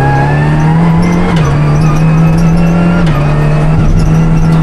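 Renault Clio Rally5's turbocharged three-cylinder engine pulling at high revs, heard from inside the car. Its pitch holds high and dips slightly about a second and a half in and again about three seconds in.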